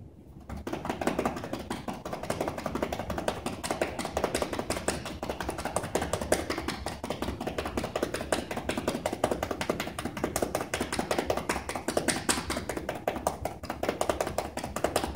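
Chest percussion: cupped hands clapping rapidly and steadily on a patient's bare back, starting about half a second in, to loosen mucus in the lungs for postural drainage.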